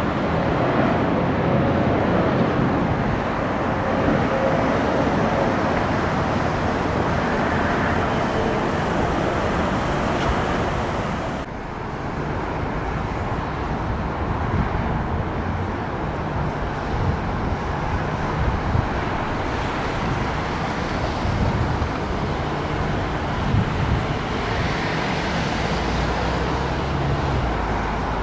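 Steady loud roar of engine noise mixed with wind, with a brief drop in level about eleven seconds in.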